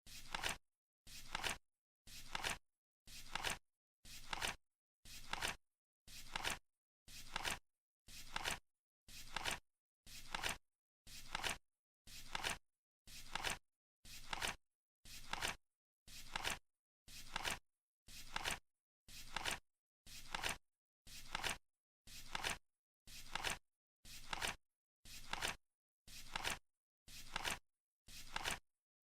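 Flip-clock countdown sound effect: a short flap, about half a second long, once every second as each digit card turns over, with dead silence between.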